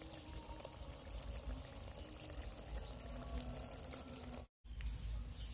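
Prawn curry simmering in a steel wok, with a steady bubbling hiss. The sound cuts out for a moment about four and a half seconds in.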